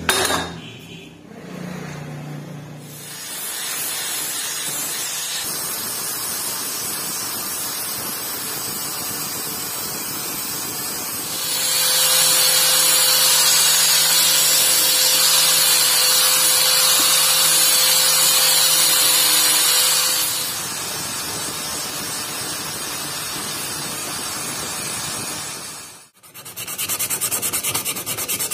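Angle grinder with a polishing pad running against a steel knife blade: a loud steady whine with a hum under it for about nine seconds in the middle. Before and after it there is a quieter steady scraping noise. After a short break near the end, a wooden handle is rubbed quickly back and forth on an abrasive.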